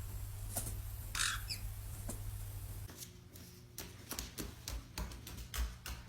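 A parrot giving two short squawks over a steady low hum, followed by a run of irregular sharp clicks and taps.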